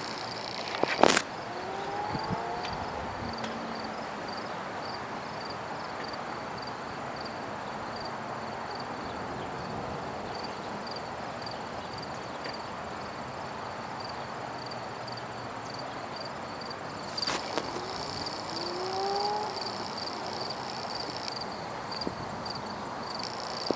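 Insects chirping in an even rhythm, about two chirps a second, over a steady outdoor rush of wind, with a sharp click about a second in and another later on.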